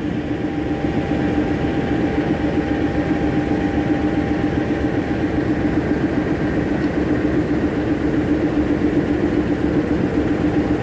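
CC206 diesel-electric locomotive's engine running steadily at low power, a constant drone with a steady hum, as the locomotive eases up to couple onto the train.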